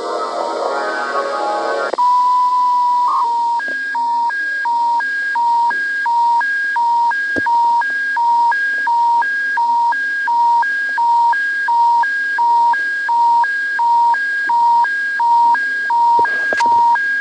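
Broadcast music cuts off about two seconds in, replaced by the Alberta Emergency Public Warning System attention tone: a steady beep for about a second, then an electronic alarm alternating between a low and a higher pitch, switching about three times a second.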